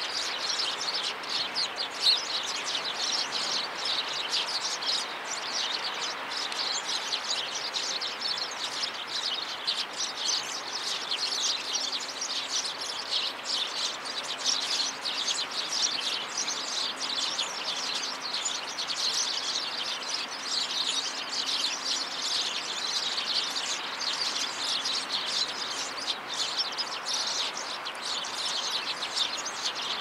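Many small birds chirping busily and continuously, their short calls overlapping, over a faint steady background noise.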